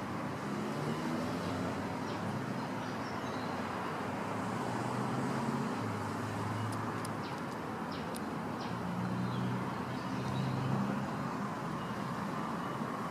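Steady road traffic: passing car engines and tyre noise that swell and fade over several seconds.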